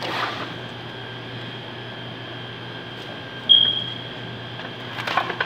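Plastic cling film being drawn off the roll in its cardboard dispenser box, with a rustle at the start, a brief high squeak about three and a half seconds in, and crinkling clicks near the end. A steady hum of kitchen ventilation runs underneath.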